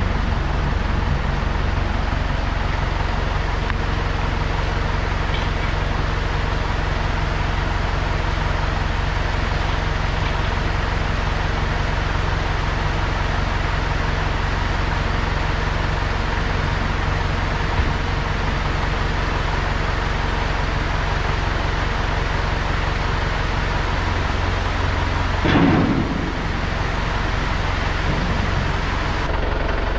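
Tractor engine running steadily at idle, with a brief louder surge near the end.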